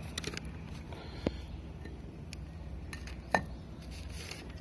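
Quiet room background: a steady low hum with a few sharp light clicks or clinks, the loudest two about a second in and just past three seconds.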